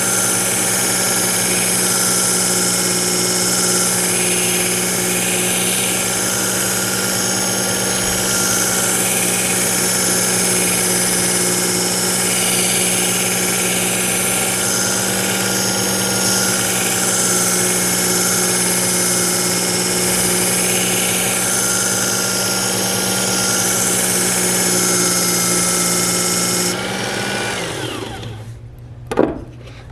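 Work Sharp electric belt knife sharpener running steadily on its X65 abrasive belt while a kitchen knife is ground. About 27 seconds in, the motor is switched off and its hum falls in pitch as it winds down, followed by a few knocks.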